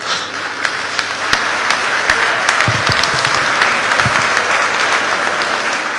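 A chamber full of members of parliament applauding: dense, steady clapping that builds within the first second, holds, and eases off near the end.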